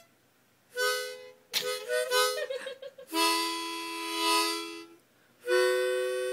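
Harmonica played in chords: a few short chords and quick notes, then two long held chords, the second starting about five and a half seconds in.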